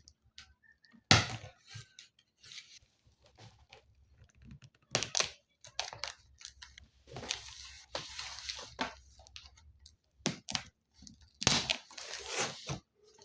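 A blunt house key being worked through the seal of a cardboard appliance box, giving irregular bursts of scraping and tearing, with a sharp knock about a second in.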